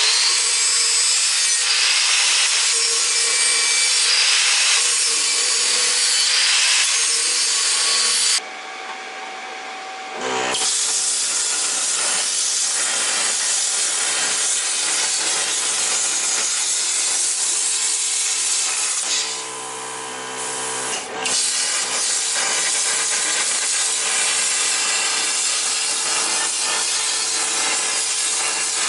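A power tool running hard on the workpiece: a loud, steady hiss over a motor hum. It eases off twice for a couple of seconds, about a third of the way in and again past the middle, leaving the hum.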